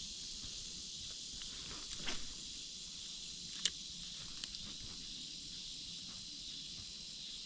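Faint, steady high-pitched insect chorus, with a few small clicks and a light knock about two seconds in and again between three and a half and four and a half seconds in.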